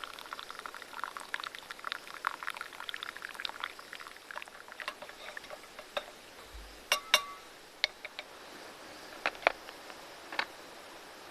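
Liquid pouring into a container with bubbling and gurgling for the first few seconds. This is followed by a few sharp clinks and taps, one of them with a short ring, like a cup or utensil being set down.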